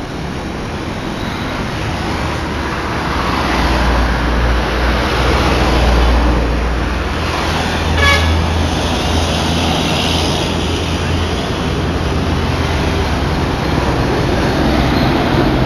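Heavy diesel trucks passing along a road amid traffic, with a deep engine rumble that builds a few seconds in and fades after about eleven seconds. A short horn toot sounds about eight seconds in.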